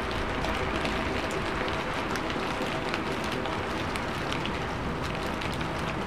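Steady rain falling: a constant hiss with many small drop impacts ticking through it.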